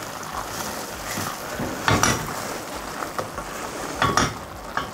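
Thickened tomato sauce sizzling in a frying pan on a gas burner while a silicone spatula stirs it, scraping and knocking against the pan about two seconds in and again near the end.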